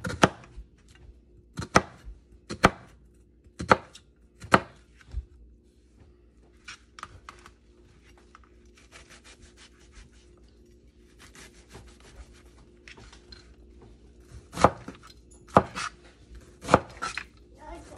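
Chef's knife chopping a red onion on a plastic cutting board: single sharp knocks about a second apart, then a run of quicker, lighter cuts in the middle, and firmer strikes again near the end.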